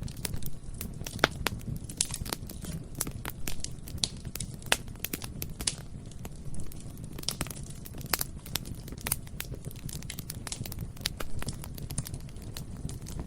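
Bonfire burning: a steady low rumble of flame with frequent irregular crackles and sharp snaps and pops of burning wood.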